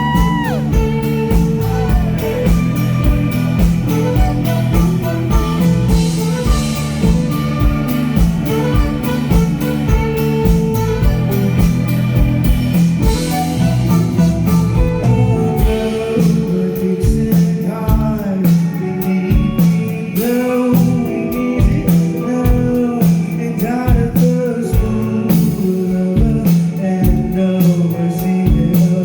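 Live rock band playing a song with a steady drum beat, bass and electric guitar, with singing.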